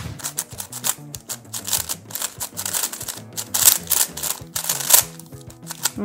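A plastic MFJS Meilong 3M V2 3x3 speed cube being turned fast during a timed solve: a rapid run of quick plastic clicks from the layers turning.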